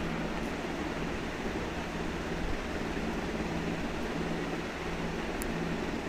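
Steady low hum and hiss, with one faint light tap about five seconds in.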